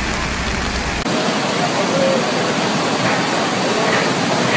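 Rushing floodwater, a steady loud noise of fast-flowing water. About a second in it cuts to a different recording of the same kind of rushing water, with brief faint voices.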